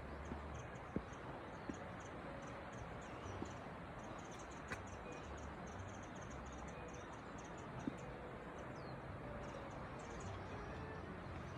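Insects chirping in quick, evenly repeated pulses over a steady outdoor hiss, with a few faint short bird notes.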